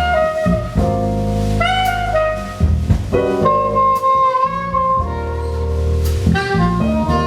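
Jazz band playing live: a saxophone melody over keyboards and a bass line, with one long held note in the middle.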